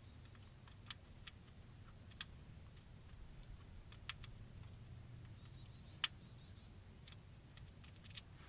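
Faint, scattered small clicks and taps, the loudest about six seconds in, over a low steady hum: hands and a hand tool working at bolts and electrical connectors.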